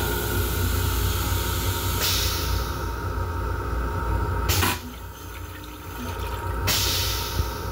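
Long Island Rail Road M7 railcar toilet flushing: a loud hiss of rinse water into the bowl that cuts off suddenly about halfway through, then starts again near the end, over the steady low rumble of the railcar.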